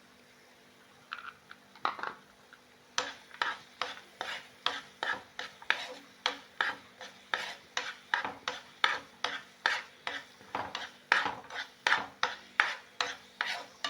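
A spoon stirring thick dates halwa in a pan over a low flame, scraping the pan about two and a half times a second. The stirring starts about three seconds in, after a few light knocks.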